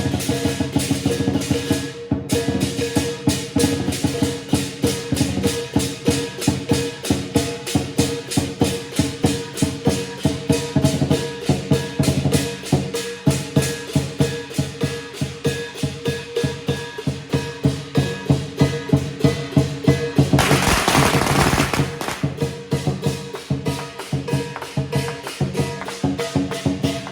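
Chinese lion dance percussion, with drum, cymbals and gong, playing a fast, even, driving beat. About twenty seconds in, a dense crackling burst of noise lasts a second or two.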